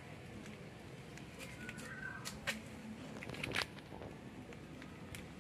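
Steady outdoor background noise with a few sharp clicks, the loudest about halfway and two thirds of the way through, and a couple of short high chirps about a third of the way in.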